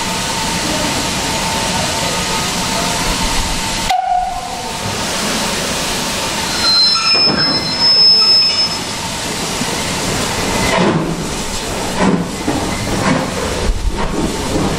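BR Standard Class 2MT 2-6-0 steam locomotive standing with a steady hiss of steam, sounding a brief high whistle about seven seconds in. Near the end it moves off with slow exhaust chuffs about a second apart.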